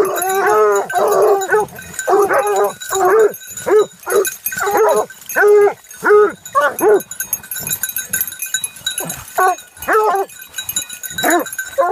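A dog whining and yelping in a long run of short, pitched calls that rise and fall. The calls come close together at first, then more spaced out with short gaps between them.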